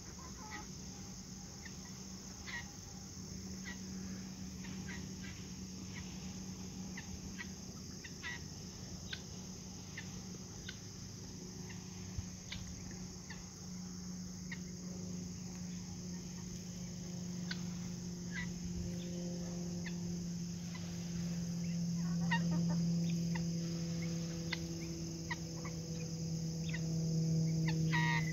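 A flock of backyard chickens clucking and murmuring as they forage, growing louder toward the end.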